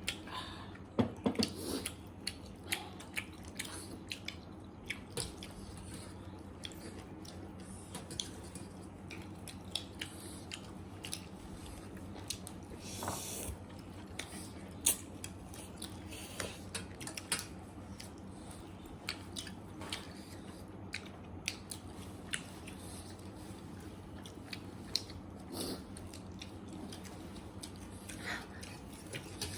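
Close-miked chewing and biting of pork and noodles: many short irregular clicks and smacks of the mouth over a steady low hum.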